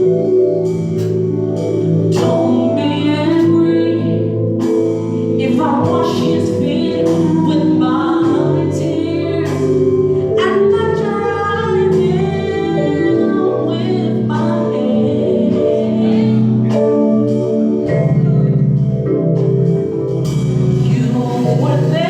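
Gospel music: voices singing together over sustained organ chords.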